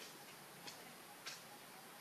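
Near-quiet background hiss with three faint, sharp ticks spread across the two seconds.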